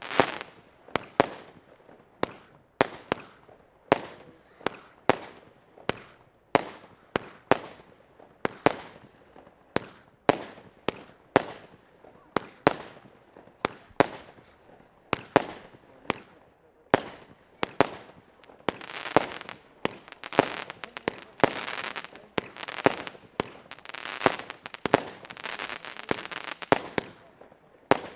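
Fireworks battery firing shot after shot, with sharp bangs about one or two a second as shells launch and burst. In the second half the bangs come closer together, with a continuous rushing crackle between them.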